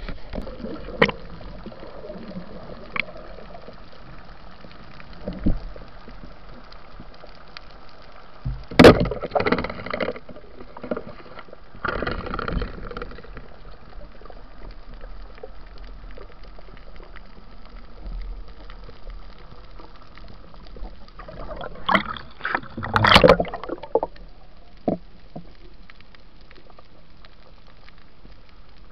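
Water noise picked up by a camera underwater: a steady low hiss broken by short bursts of gurgling and sloshing. The loudest burst comes about nine seconds in, another near twelve seconds, and a cluster around twenty-two to twenty-four seconds.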